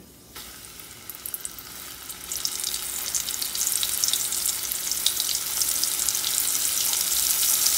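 Battered shrimp frying in hot oil in a stainless steel skillet: a sizzle that starts as the pieces go in and swells over the first two to three seconds into a steady, loud crackling sizzle. The oil is very hot, so the frying is vigorous.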